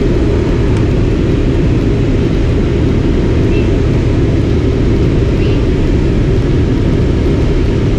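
Steady engine and propeller drone inside the cabin of a Cessna 172 light airplane on final approach.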